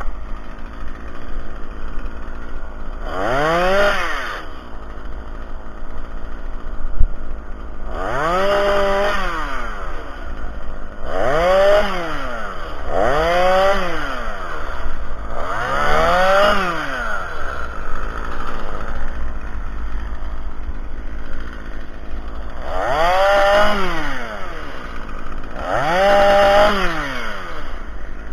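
Stihl chainsaw revved up hard in short bursts about seven times, its pitch climbing and dropping back each time, idling between bursts. There is one sharp knock about seven seconds in.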